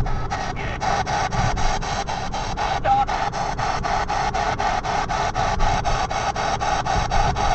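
P-SB7 spirit box radio sweeping the FM/AM bands: choppy bursts of radio static, about four to five a second, with a brief tone about three seconds in. Low road rumble from the moving car underneath.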